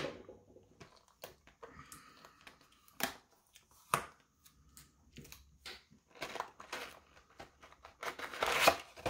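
Plastic wrapping and foil card packs crinkling and crackling as a hockey card hobby box is opened and its packs handled. Scattered sharp crackles, with a longer, louder crinkling stretch near the end.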